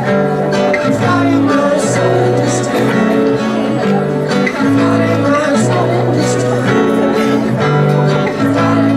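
Live acoustic music: held chords that change about every second, with short sharp high accents recurring throughout.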